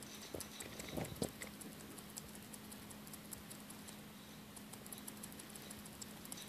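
Hoary bat feeding on mealworms: quick, irregular small clicks of chewing and smacking, with two soft knocks about a second in.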